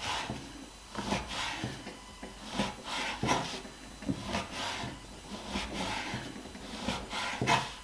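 Lebanese flatbread being cut into pieces: a series of short rasping cuts with light knocks, roughly one a second and unevenly spaced.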